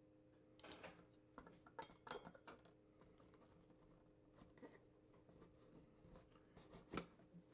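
Near silence: faint scattered clicks and rustles of a trading card being handled, over a faint steady hum.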